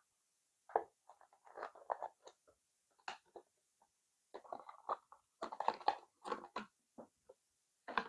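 Crackling and clicking of a thin plastic packaging tray being handled while a braided USB-C cable is pulled out of it, in irregular spells of handling noise with short pauses between.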